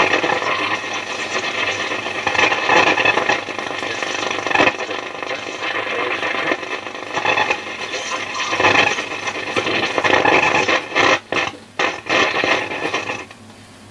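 Hacker Super Sovereign transistor radio's loudspeaker hissing with AM static and faint broadcast while it is tuned, breaking up in several brief dropouts near the end, then cutting off suddenly just before the end. The set has a faulty amplifier board, which the repairer is 90% sure is down to capacitors.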